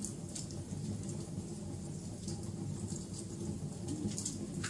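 Wood fire crackling: sharp pops several times over a steady low rumble of burning.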